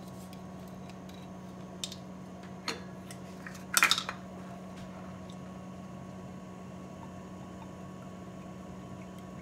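Measuring spoons clinking and clattering as they are picked up off a kitchen counter: a couple of light clicks, then a short clatter about four seconds in. A steady low hum runs underneath.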